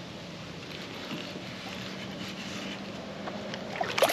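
Faint steady hum of distant road traffic carrying over the lake, with a louder burst of water noise starting right at the end.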